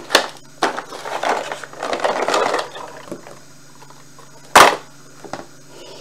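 A cardboard toy box being opened and handled: a click, then a couple of seconds of rustling and scraping. About four and a half seconds in comes a single sharp knock, the loudest sound, followed by a fainter click.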